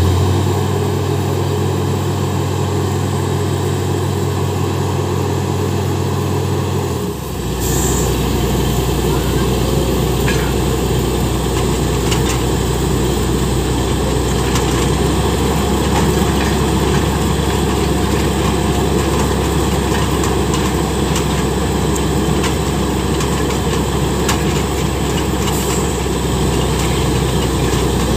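Truck-mounted borewell drilling rig running steadily at full power, its engine and air compressor making a loud, continuous drone. About seven seconds in, the note of the drone changes abruptly to a lower hum and then holds steady.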